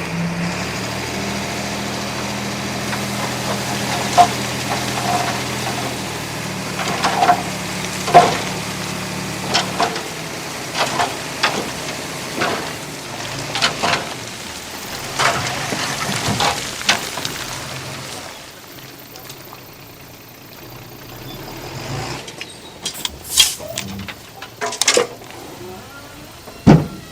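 Heavy diesel engine of earth-moving machinery running steadily, with repeated sharp metal clanks and knocks. The engine fades about two-thirds of the way through, leaving scattered knocks.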